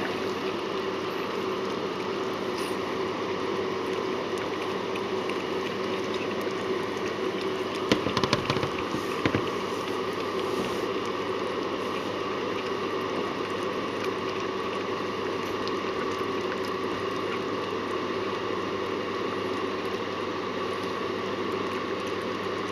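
Whippet mother licking her newborn wet pup, soft wet licking over a steady background hum and hiss, with a few brief louder clicks or rustles about eight to nine seconds in.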